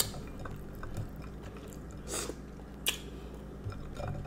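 Close-miked chewing of a chocolate chip cookie, with a few sharp, crunchy bites.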